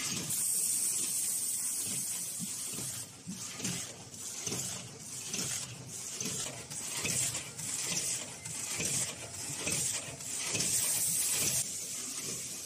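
Vertical form-fill-seal packaging machine running, making chip bags: a steady repeating mechanical clatter of clicks about twice a second, over a high hiss.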